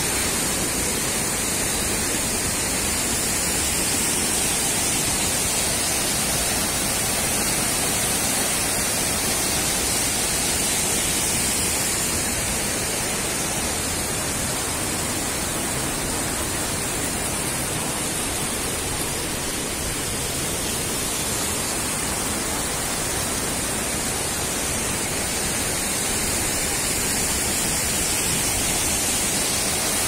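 Steady rushing of a rocky stream and waterfall, an even hiss-like roar of water that holds at one level throughout.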